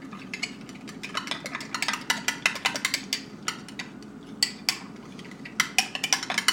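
A utensil stirring sriracha mayonnaise in a small dish, clinking against its sides in many quick, irregular taps.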